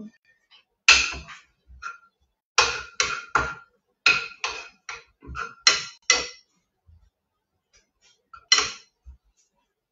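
A metal cooking utensil clanks against a frying pan while food is stirred in it: a quick, irregular run of sharp ringing knocks for about five seconds, then a pause and one more clank near the end.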